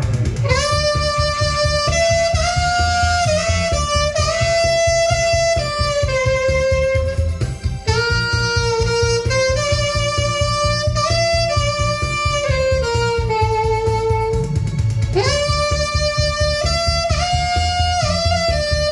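Saxophone playing a slow melody in long held notes, with two short breath pauses, over a backing track with a steady beat.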